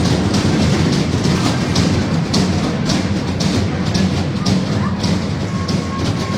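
Music with a steady beat playing over an ice rink's sound system.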